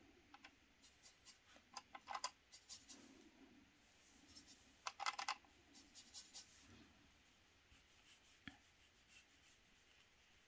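Faint, scattered clicks and light scratches of a watercolour brush being worked in the paint palette and on paper. There are two short clusters of sharper clicks, about two seconds and five seconds in.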